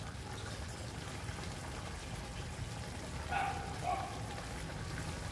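Chicken and cabbage in a hot wok sizzling steadily just after a little water has been added, the water boiling off as steam.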